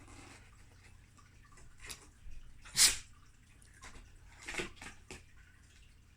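Kittens pawing and scratching at a homemade cardboard puzzle box to dig out treats: scattered short rustles and scrapes, the loudest a sharp one near the middle and a cluster of smaller ones a couple of seconds later.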